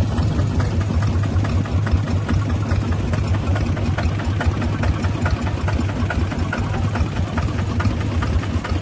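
Engine of a small Kubota bulldozer idling steadily, with a fast, even beat of firing pulses.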